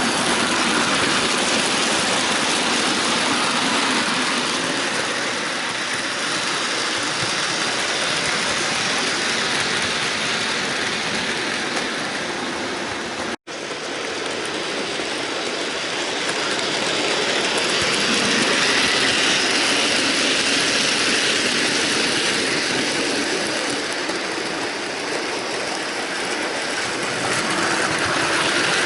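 Bachmann model train running around a layout: a steady whirr of the motor and wheels on the rails that grows louder and fainter as the train passes. The sound drops out completely for an instant about halfway through.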